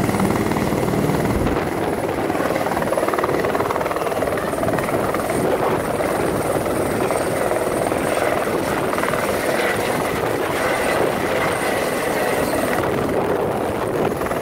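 Airbus H130 helicopter's single turboshaft engine and rotor running at lift-off power as it rises into a low hover close by: a loud, steady rotor and turbine noise with a faint high whine over it.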